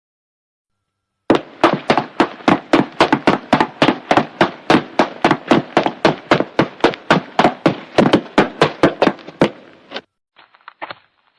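Quick, hard footsteps, about five steps a second, starting about a second in and stopping near the end. A second, fainter and duller set of slower footsteps begins just after.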